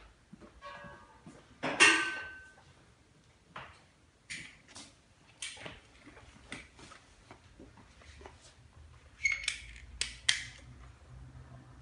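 Handling noise around a stainless-steel stand mixer: light clicks and knocks, one loud metallic clank with brief ringing about two seconds in, and a few sharp clicks near the end as the power plug is handled.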